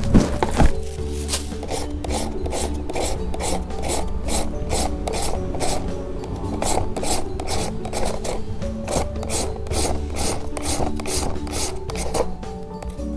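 Young green papaya being shredded on a plastic julienne grater: the flesh rasps across the blades in quick, even strokes, about three a second, starting about a second in.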